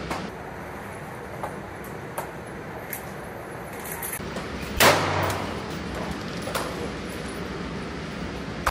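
Two pistol shots about four seconds apart, the second at the very end, each with a short reverberant tail in the indoor range. A few much fainter sharp clicks come before the first shot.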